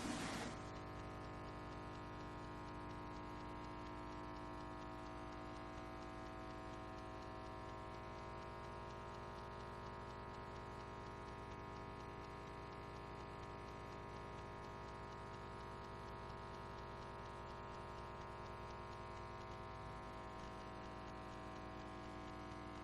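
Steady electrical mains hum with a ladder of overtones, at a low level and unchanging.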